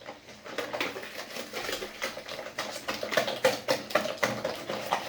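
Eggs and sugar being beaten by hand in a bowl: quick, irregular clicking strokes of the utensil against the bowl, a little stronger in the second half.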